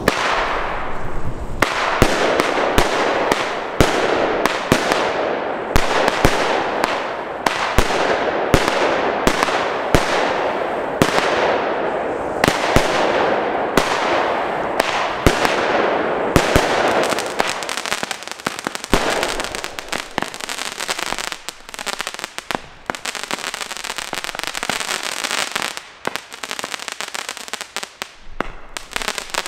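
Consumer firework cakes firing: a fast string of shots and bursting reports, about two a second, over a continuous hiss. After about seventeen seconds it thins into a quieter, denser crackle of small pops.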